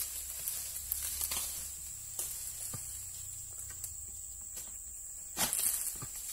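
Dry oil palm fronds rustling and scraping against a long harvesting pole, with scattered clicks and one louder rustling burst about five and a half seconds in, over a steady high insect drone.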